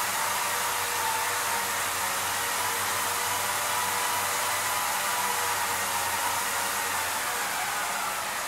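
Motors of a homemade motion-control camera rig running as it drives the camera to its next position: a steady rushing hiss with a faint whine that dips slightly in pitch near the end.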